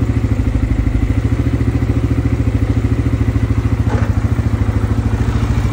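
CFMOTO CForce 600 ATV's single-cylinder four-stroke engine idling steadily at about 1650 rpm, with a brief knock about four seconds in.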